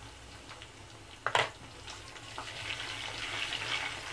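Bitter gourd pieces frying in oil in a pan, with ginger-garlic paste just added: a single sharp knock about a second in, then the sizzling builds as the paste is stirred into the oil with a wooden spatula.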